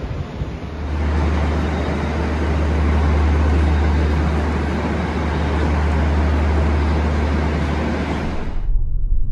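Diesel-electric locomotive idling while standing at a platform: a steady low engine drone with a broad rushing noise over it. It starts about a second in and cuts off suddenly near the end.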